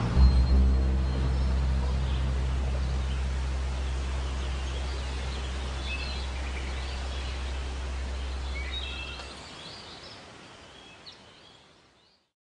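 Outdoor ambience with scattered short bird chirps over a steady low hum; the hum stops about nine seconds in and the ambience fades out near the end.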